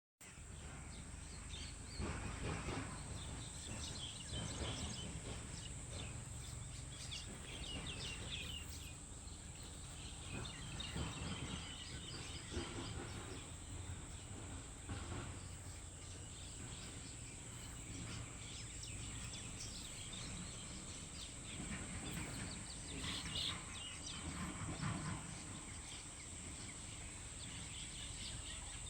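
Birds chirping and calling off and on over steady outdoor background noise.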